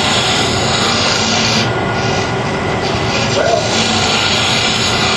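Wood lathe running while a carbide-insert turning tool hollows a kiln-dried maple goblet: a steady, dense hiss of cutting over a low hum, the hiss swelling and easing as the cut changes.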